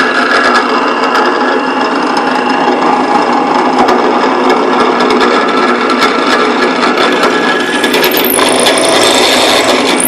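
Foremost model 020 drill press running and boring into a wooden board, the spindle making a steady chattering, grinding noise as the quill is fed under power. The owner takes this for a fault in the spindle.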